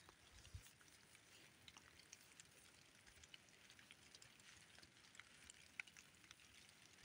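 Near silence: faint outdoor ambience with scattered light ticks and a soft low thump about half a second in.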